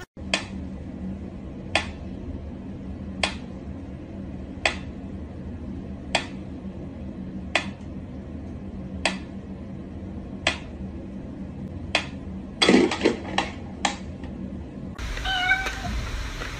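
Mechanical pyramid metronome ticking slowly and evenly, about one tick every second and a half. Near the end a cat cries out among a quick run of louder clicks.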